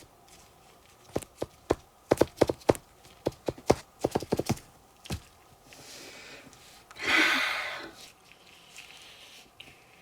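Eating sounds while a cake is eaten: an irregular run of sharp clicks and taps for the first few seconds, then a short rush of noise lasting about a second around seven seconds in.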